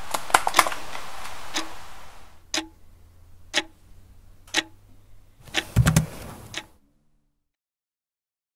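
A clock ticking steadily, about once a second, with a quick cluster of clicks in the first second. About five and a half seconds in, a louder burst of noise with a low rumble lasts about a second, then the sound cuts off to silence.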